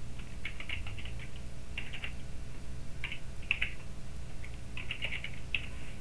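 Typing on a computer keyboard: several short bursts of keystrokes with pauses between, over a low steady hum.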